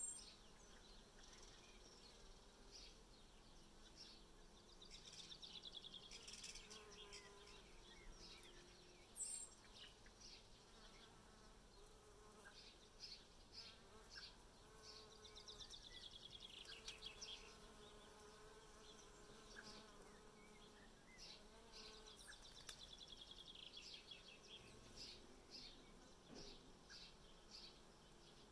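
Bees buzzing as they fly about feeding in flowers, a faint hum that wavers in pitch. High trills that fall in pitch come every ten seconds or so, with two short ticks, one at the start and one about nine seconds in.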